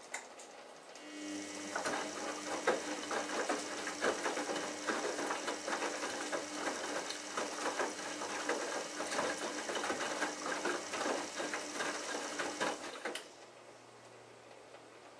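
Samsung Ecobubble WF1804WPU front-loading washing machine turning its drum on a wash tumble. The motor hum starts about a second in, wet laundry splashes and knocks in the drum with many small clicks, and everything stops abruptly near the end as the drum halts.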